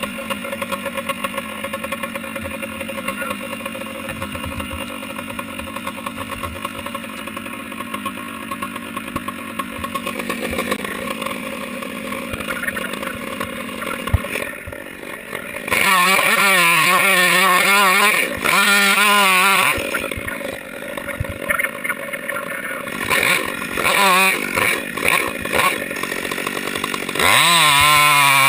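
A Stihl chainsaw revving hard in several loud bursts, from about halfway on, with its pitch wavering as the chain loads up in the cut. The last burst is the longest and climbs in pitch. Before that, a quieter engine runs steadily.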